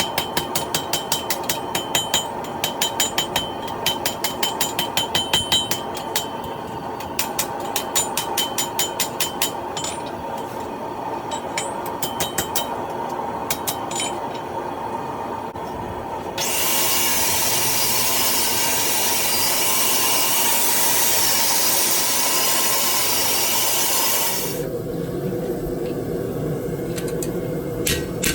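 Hammer strikes ringing on steel at an anvil, in quick runs of about four to five blows a second, then sparser, over a steady low hum. About sixteen seconds in, a loud steady hiss starts and cuts off about eight seconds later, and a few more hammer blows ring near the end.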